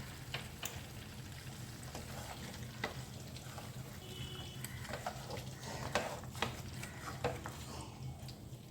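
Chicken curry gravy cooking down in a pan while a spoon stirs it, with scattered clicks and scrapes against the pan over a steady low hum.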